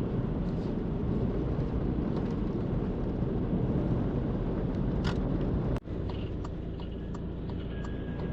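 Vehicle driving on an open road: steady engine and tyre noise. About six seconds in it drops out for an instant, then carries on slightly quieter.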